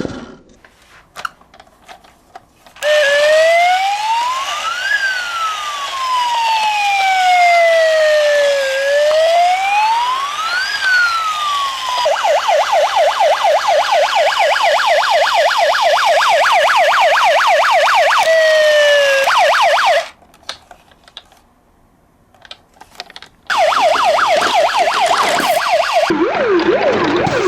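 Electronic police-style siren: a slow wail rising and falling twice, then switching to a fast yelp. It stops for a few seconds, with only small clicks, then the fast yelp returns and drops to a lower-pitched yelp near the end.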